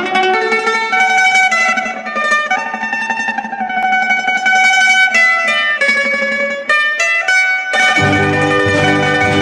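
Intro music: a melody of plucked string notes over a steady low drone. About eight seconds in, a fuller accompaniment with bass notes comes in.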